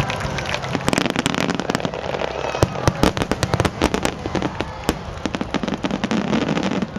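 Fireworks going off in a rapid volley of sharp bangs and crackles, starting about a second in, densest for a few seconds and then thinning out.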